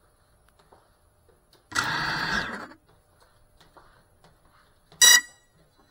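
Small FPV quadcopter's brushless motors whirring briefly for about a second, then a short, sharp high-pitched beep about three seconds later.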